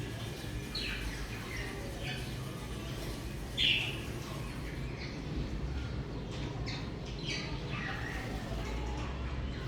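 Budgerigars chirping: a scatter of short, quick chirps and calls, the loudest one a little over a third of the way in, over a steady low hum.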